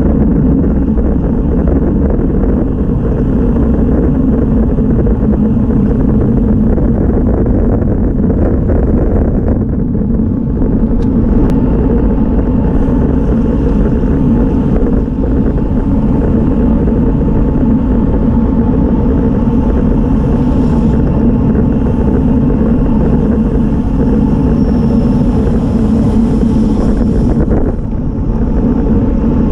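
Steady wind and road noise on a road bike's onboard camera at about 20–25 mph: air rushing over the microphone and tyres running on asphalt. The noise dips briefly near the end.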